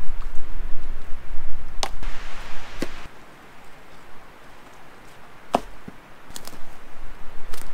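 An axe striking wood in a few separate chops, unevenly spaced, with a low rumble that stops about three seconds in.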